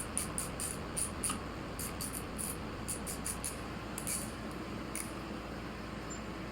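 Faint, irregular light clicks, about a dozen in the first five seconds, from the loose motorcycle mirror being handled and turned on its mount.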